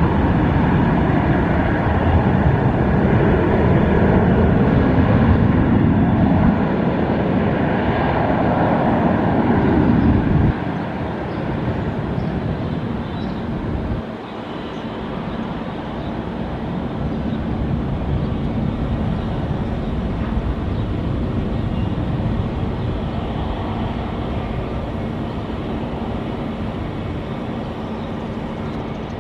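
Jet airliner engines running at high power during a takeoff roll and climb-out: a steady, loud rush with faint whining engine tones over it. The sound drops abruptly about ten seconds in and again about fourteen seconds in, then swells slowly.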